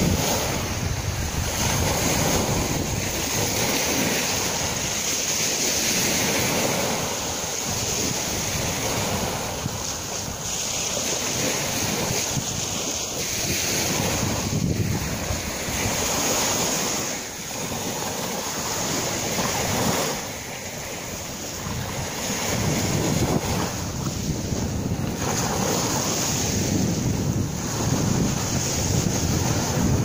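Small Black Sea waves breaking and washing up over a shell-grit beach, the surf swelling and easing as each wave comes in. Wind buffets the microphone throughout.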